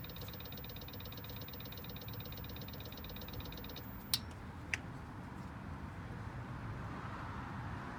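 A BMW 328d four-cylinder diesel makes a rapid, even ticking over a low hum, which stops a little before halfway. Two sharp clicks from under the car follow about half a second apart, the second with a short ring. These are the shutdown/startup clicks the owner likens to relays or valves.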